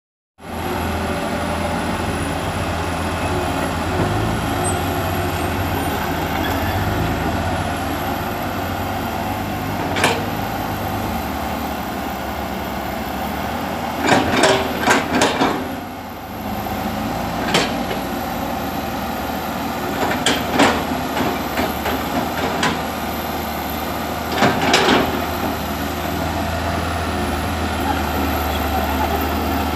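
Komatsu PC120 hydraulic excavator working, its diesel engine running steadily under load as it digs and heaps soil. Sharp knocks and clanks break in now and then, in short clusters about midway and again later.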